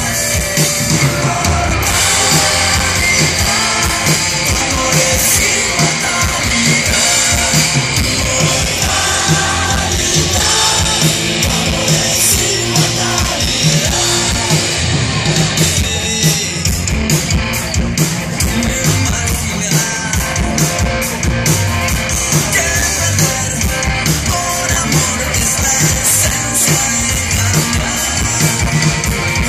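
Rock band playing live and loud: electric guitars, bass and drums, with singing, and a crowd singing and shouting along.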